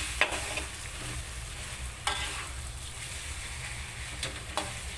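Wooden spatula stirring thick, nearly dry chicken rendang in a metal wok. The food sizzles steadily, with a handful of sharper scrapes as the spatula drags across the pan.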